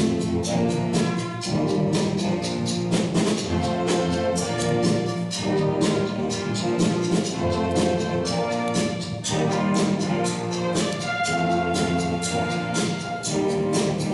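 High school band playing a brass-led tune over a steady drum beat.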